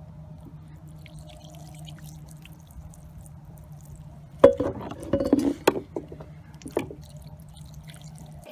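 Water dripping and trickling off an iced-up pistol as it is thawed with hot water, over a steady low hum. A cluster of sharp clicks and knocks of metal comes about four and a half seconds in, and one more near the end.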